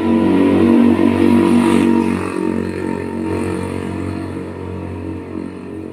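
A motor vehicle engine running, loudest over the first two seconds and then fading away.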